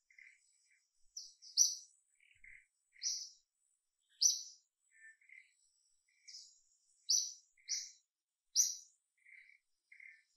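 Wild birds chirping: about eight short, sharp high chirps at irregular intervals stand out as the loudest sounds. Quieter short, lower notes fall between them, with a faint steady high insect tone behind.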